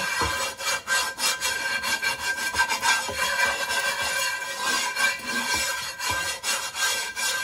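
Chainmail scrubber scraping over a dry cast iron skillet in quick back-and-forth strokes, scrubbing off dried-on food residue.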